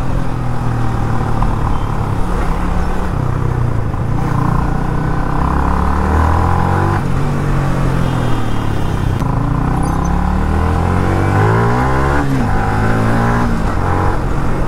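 Yamaha R15 V3's 155 cc single-cylinder engine under way on the road, its pitch climbing several times under acceleration and dropping back between gear changes, over a steady rush of noise.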